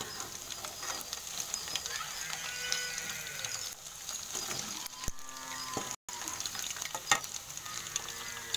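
Batter-coated cauliflower florets sizzling as they deep-fry in hot oil in an aluminium kadai, with a few sharp clinks of a metal slotted spoon against the pan as the florets are turned.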